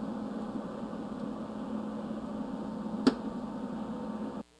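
Steady hum of a switched-on Miller MIG welder, with one sharp click about three seconds in as the wire-feed drive-roll tension arm is handled. The sound cuts out briefly just before the end.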